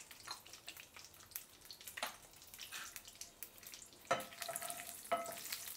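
Cashews and raisins sizzling faintly in ghee in a nonstick pan, with small crackles. From about four seconds in, a wooden spatula starts stirring and knocks against the pan, giving a few sharp knocks with a short ring.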